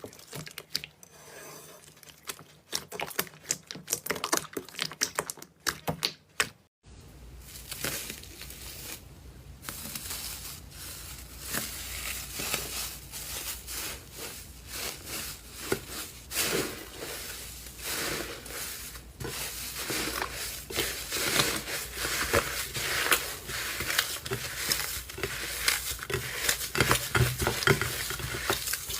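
Slime being handled and pressed, making sharp sticky clicks and crackles. After a cut about seven seconds in, the crackling becomes dense and continuous, like crunchy slime being squeezed.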